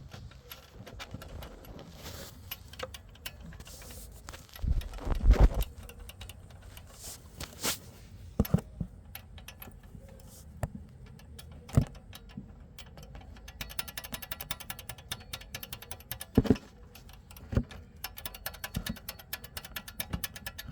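Turbocharger wastegate linkage on a 1.4 TFSI engine rattling, irregular metallic clicks and clatters with a louder cluster about five seconds in and a fast run of ticks near the end. This is wastegate rattle: the rod's retaining bracket has widened with wear and has more play than normal.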